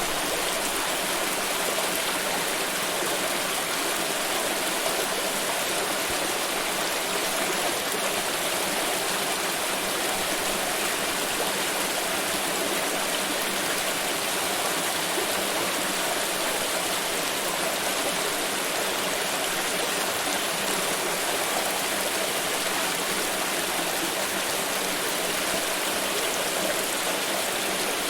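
Flowing water, a stream running steadily over rocks in an even, unbroken rush.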